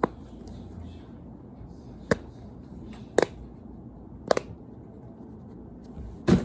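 Sharp clicks or taps from a fidget toy being handled, about five of them spaced roughly a second apart, a couple of them doubled.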